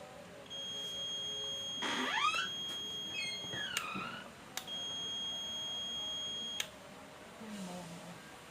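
Continuity beep of a multimeter or tester checking the cleaned switch: a steady high beep sounds twice, about three seconds and then two seconds long, each switched on and off with a click, showing the switch now conducts. A short warbling chirp sounds during the first beep.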